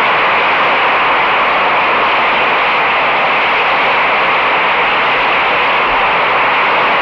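Audience applause, a steady dense clatter of clapping with no singing or orchestra, heard through a low-fidelity live recording.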